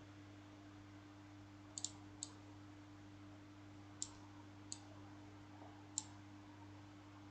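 Computer mouse clicking a handful of times: a quick double click nearly two seconds in, then single clicks spaced a second or so apart. A faint steady low electrical hum runs underneath.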